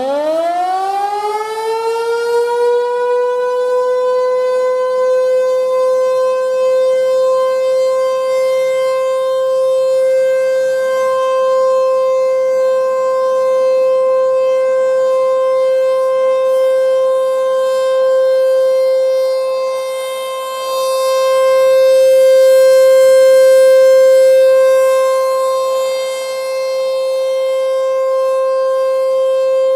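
ASC T-128 rotating mechanical outdoor warning siren winding up from low pitch to a steady tone within about three seconds, then holding that single steady tone: the Alert signal of its scheduled test. The sound swells louder for a few seconds about two-thirds of the way through.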